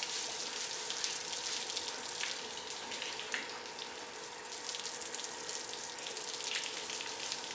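Water from a hose jet spraying and spattering on an elephant's wet head and back: a steady hiss broken by irregular splashes.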